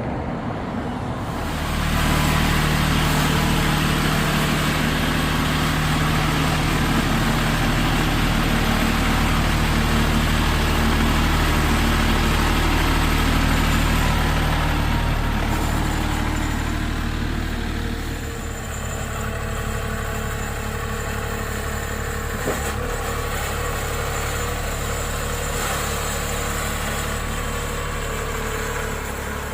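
A vehicle engine running at a steady speed, louder for the first half, then quieter and lower after about 18 seconds in.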